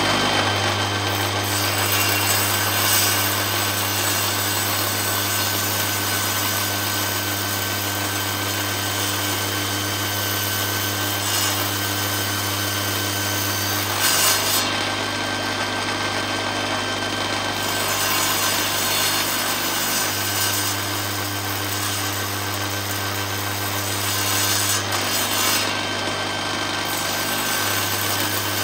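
Table saw running with a steady low hum and a high whine, its blade cutting a slot lengthwise into the end of a turned wooden clothespin blank. The cutting hiss grows louder a couple of times as the blank is pushed into the blade.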